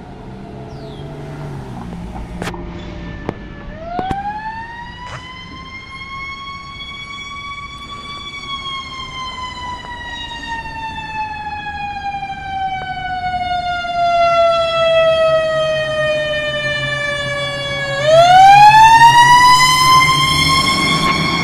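Fire engine siren wailing on a 2020 Pierce Quantum pumper. About four seconds in it rises in pitch, then falls slowly for about ten seconds, then rises sharply again and is loudest near the end as the truck comes close. A low steady hum runs underneath.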